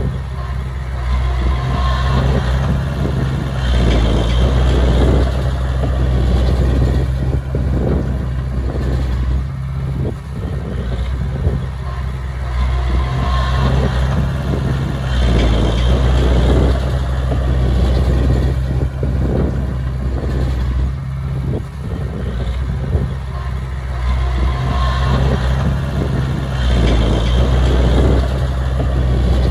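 Diesel engines of a small crawler bulldozer and a 5-ton dump truck running together. The engine note swells and eases every few seconds as the dozer works the soil.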